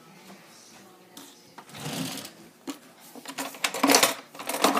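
Rapid, irregular clattering and rattling of small hard objects being handled and rummaged through, starting about a second and a half in and getting louder toward the end.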